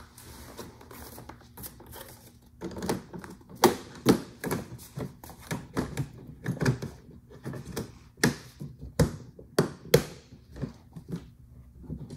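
Plastic clutch side panel of a Polaris snowmobile being fitted back on by hand: a quick, irregular run of plastic knocks, taps and clicks, starting about two and a half seconds in.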